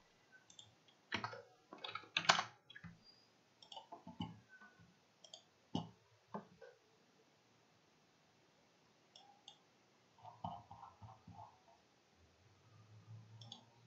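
Scattered computer mouse clicks and a few key taps, irregularly spaced, with long gaps between them.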